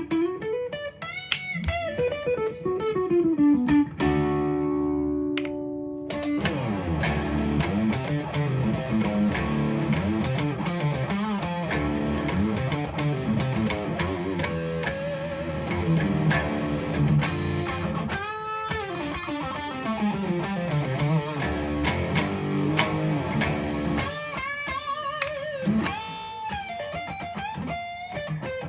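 1998 PRS CE 22 electric guitar being played: melodic lines with notes sliding and bending in pitch, a chord held about four seconds in, then a long stretch of busy, fast playing.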